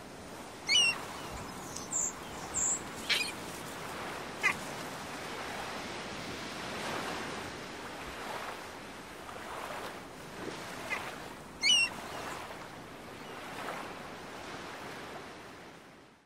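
Seaside ambience: a steady wash of waves with birds calling over it. Two loud, sharp falling chirps, about a second in and again near twelve seconds, with a few shorter calls in between.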